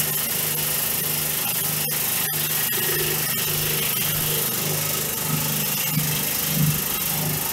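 Vibrating flour sifter running steadily: its vibrator motor hums low and even under a constant hiss as the round stainless-steel screen shakes.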